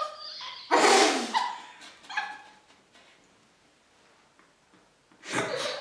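Muffled laughter and squeals forced out through closed lips from mouths stuffed full of marshmallows, with a loud breathy burst about a second in and a short high cry soon after. A quiet stretch follows, then another burst near the end.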